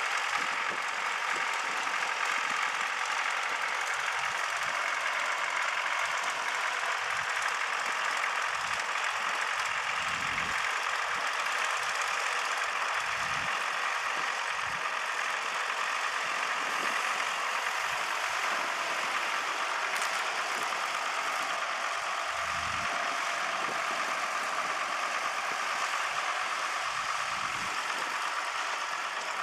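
Diesel farm tractor engine running steadily at idle on the beach, with a few brief low rumbles now and then.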